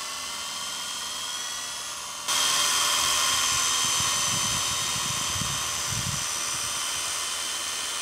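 Radio-controlled model helicopter in flight: a steady high-pitched whine of its motor and rotors that gets suddenly louder a little over two seconds in. Low rumbling comes in around the middle.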